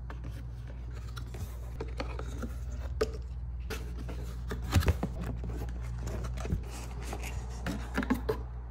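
Hands handling the cardboard inserts of a new iMac's box: scattered light taps, scrapes and rustles of cardboard, and then the coiled power cable and adapter being lifted out. The sharpest knocks come about five seconds in and in a quick cluster near the end, over a steady low hum.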